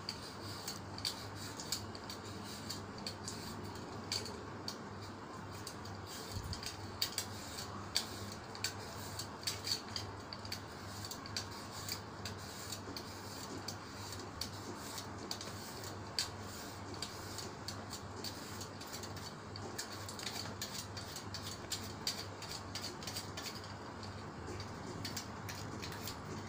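A hand vegetable peeler scraping the skin off a cucumber: a long run of short, irregular scrapes and clicks, over a steady low hum.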